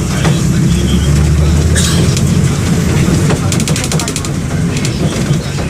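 MWM 6.12 TCE six-cylinder inline turbodiesel of a Volksbus 17-230 EOD bus running under way, heard from on board. There is a short hiss about two seconds in and a brief run of rapid clicking rattles around the middle.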